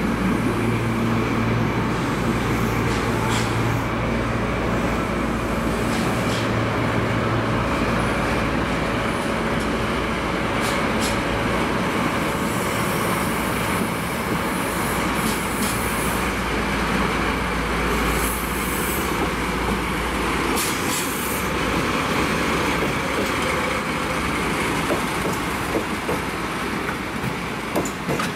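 DD51 diesel-hydraulic locomotive, its twin diesel engines running with a steady drone, passes hauling a train of empty flat wagons. The engine drone fades after the first several seconds, leaving the rolling clatter of the wagons with scattered clicks over the rail joints and brief high squeals midway.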